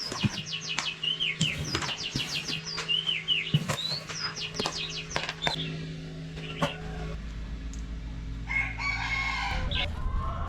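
Farm chickens calling and clucking, with quick runs of short, high, repeated notes through the first five seconds or so and a harsher, roughly one-second call about eight and a half seconds in. A low steady hum comes in about seven seconds in.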